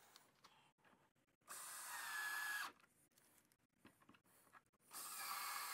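Power drill running in two short bursts, driving screws into wood: the first lasts just over a second with a slight rising whine, the second is shorter and comes near the end.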